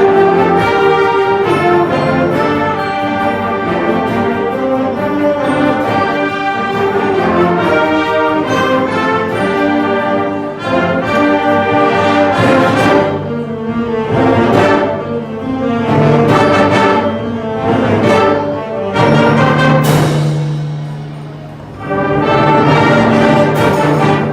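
Large concert band playing together: sustained brass and woodwind chords, then a run of short accented chords punctuated by percussion hits from about halfway. Near the end a low held note dips quieter before the full band comes back in.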